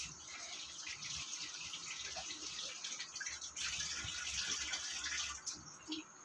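Water running from a tap and splashing in a sink. It grows louder about halfway through and stops shortly before the end, with one brief splash after.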